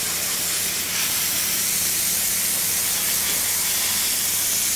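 High-pressure jet hissing steadily as it blasts the scales off a salmon before it is cleaned.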